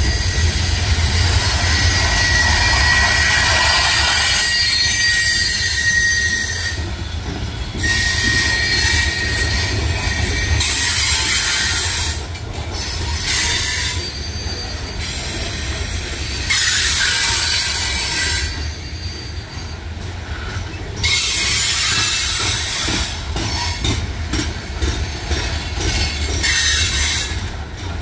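Loaded freight coal cars of a CSX coal train rolling past with a steady low rumble. A high-pitched metal-on-metal squeal from the wheels comes and goes every few seconds, strongest in the first few seconds.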